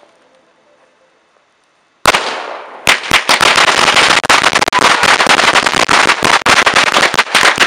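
A taped block of 270 firecrackers going off. After about two seconds of near silence comes a sudden bang, and from about three seconds in a dense, rapid barrage of cracks and pops that keeps going.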